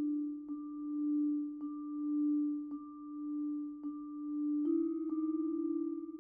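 Solo vibraphone: a low note struck softly with mallets about once a second, each stroke ringing on into the next. Near the end a slightly higher note is struck and the ringing takes on a fast waver.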